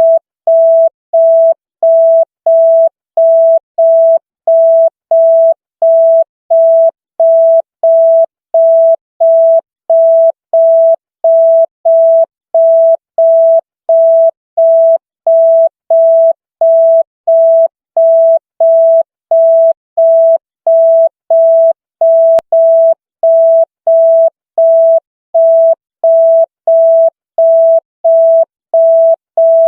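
Electronic beep tone at a single steady pitch, pulsing on and off evenly at about three beeps every two seconds, like a telephone busy signal.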